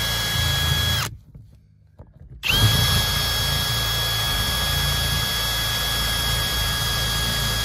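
Cordless drill running at a steady speed with a high whine, boring holes through a carpet-covered trim panel to cut out a speaker hole. It stops about a second in and starts again about a second and a half later.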